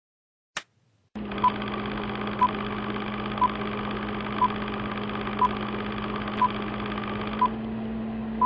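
Film-leader countdown sound effect: a short, high beep once a second over a steady hiss and low hum, after a single click near the start.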